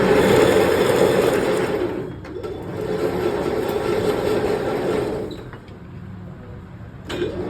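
A workshop machine running with a steady mechanical noise. It eases briefly about two seconds in, drops off after about five seconds and starts up again near the end.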